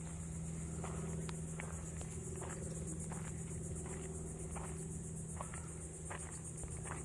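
Steady high-pitched chorus of insects such as crickets, with footsteps crunching on a gravel path about once a second, over a steady low hum.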